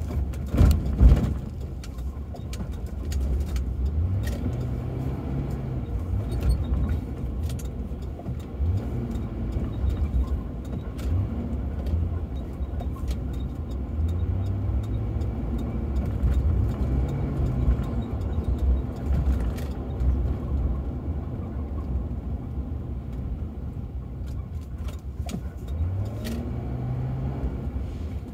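Ford Crown Victoria's V8 engine and road noise heard from inside the cabin in slow city traffic, the engine tone rising several times as the car pulls ahead. A few sharp knocks about a second in.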